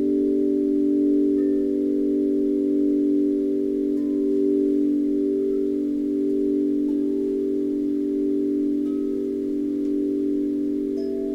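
Grace Note tuned wind chimes struck slowly with mallets: several low tones ring on and overlap, with a new note entering every few seconds.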